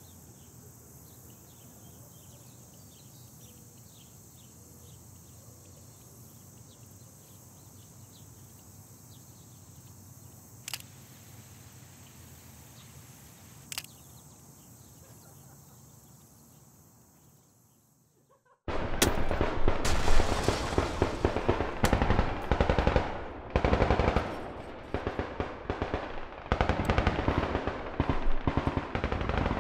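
Faint outdoor ambience with insects chirping and two sharp single cracks, fading to silence. Then, about two-thirds of the way through, loud machine-gun fire breaks in and goes on in long rapid bursts with short gaps.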